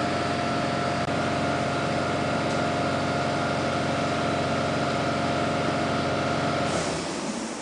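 Steady machine hum made of several even tones over a low drone, holding level and then dropping away about seven seconds in.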